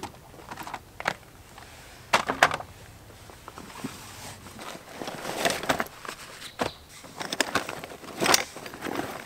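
Camping gear being handled and set down on gravel: a string of knocks and clatters with rustling between them, the loudest a pair about two seconds in.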